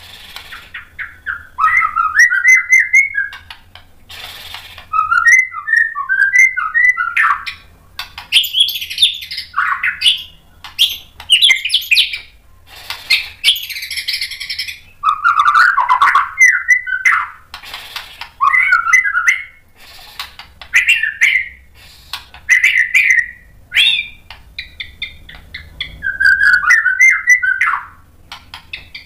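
White-rumped shama singing in repeated bursts of varied whistled phrases and fast chattering notes, with short pauses between the phrases. The bird runs through its repertoire of mimicked 'isian' phrases.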